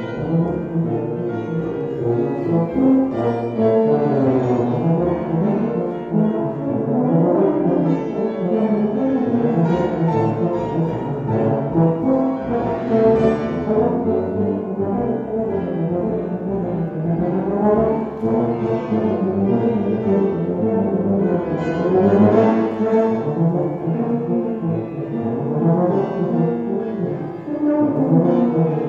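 Tuba and euphonium playing a lively chamber piece together with grand piano accompaniment, brass notes moving constantly over the piano.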